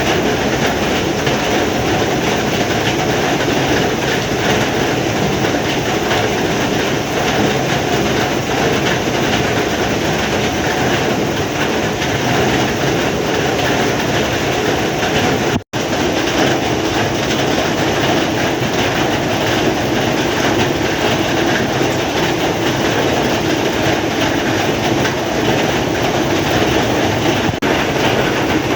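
Heavy rain falling steadily as a dense, even hiss. The sound cuts out for an instant about halfway through.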